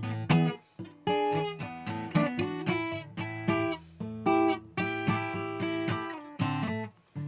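Solo guitar playing a blues in the key of A, picked chords and melody notes over a steady bass line, with brief breaks about a second in and near the end.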